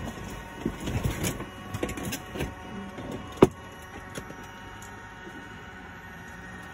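A wooden paddle working the water beside a floatplane's float, with the engine off: a run of irregular thumps and splashy knocks, then one sharp knock about three and a half seconds in.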